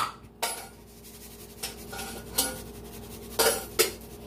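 Clinks and knocks of kitchenware as a mixing bowl and seasoning containers are handled, about six separate knocks in four seconds, the first ringing briefly.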